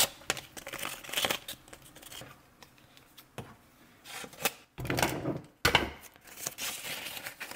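Painter's tape being pulled off the roll and torn, with rustling handling noise: irregular bursts of ripping and crinkling broken by a few sharp clicks.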